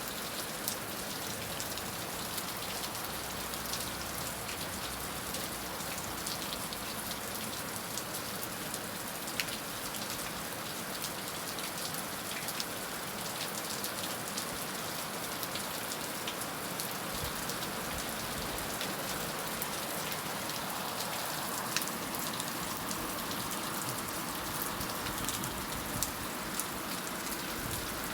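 Heavy rain falling steadily, with frequent sharp drop impacts heard as scattered ticks over the steady hiss.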